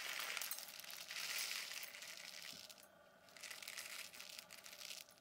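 Small PLA plastic pellets being poured from a plastic bag into a dish: a faint patter of many tiny clicks with crinkling of the bag, pausing briefly a little past the middle before trickling on.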